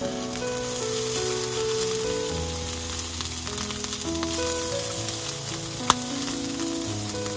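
Diced meat sizzling in hot oil in a small frying pan on a camp stove as it is dropped in piece by piece, with a sharp click about six seconds in. Soft background music plays under it.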